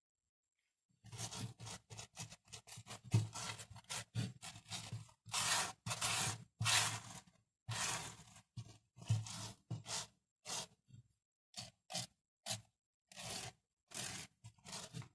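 Granular aquarium substrate being scraped and pushed into a slope by hand in a glass tank: a run of irregular short scrapes and crunches, about two a second, starting about a second in.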